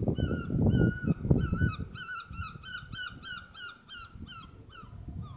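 A gull calling: a few drawn-out cries, then a quick series of shorter yelping notes about two or three a second, growing fainter near the end. A low rumble runs under the first couple of seconds.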